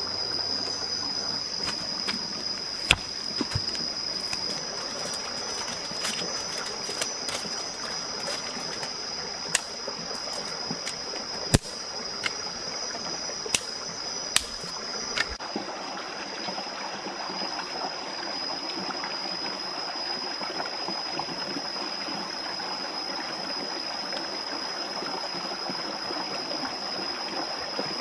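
Steady rushing water of a stream, with a constant high-pitched tone above it. Sharp clicks and knocks come now and then through the first half and stop about halfway through.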